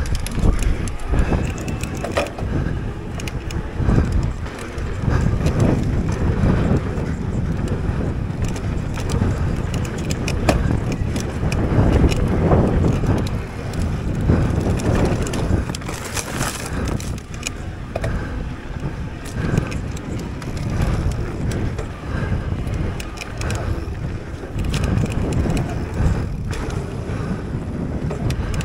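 Mountain bike on a dirt trail, recorded from the rider: tyres crunching over dirt and rocks, with a steady rush of wind on the microphone and scattered clicks and rattles from the bike.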